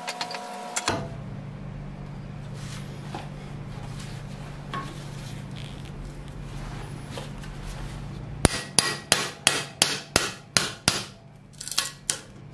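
Hammer blows on a chisel driven between the old wooden handle scale and the tang of a rusty cleaver clamped in a vise, splitting the handle off. There are about ten sharp strikes at about three a second, starting past the middle, then a short pause and a few more near the end. A brief metallic clatter comes at the start, over a steady low hum.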